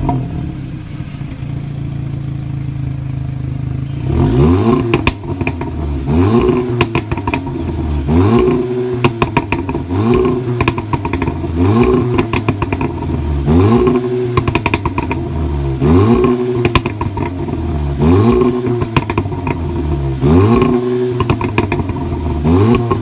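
2017 Audi S3's turbocharged 2.0-litre four-cylinder with the exhaust resonator deleted, idling steadily, then revved in quick blips about every two seconds from about four seconds in. Each blip is followed by exhaust pops and crackles as the revs fall.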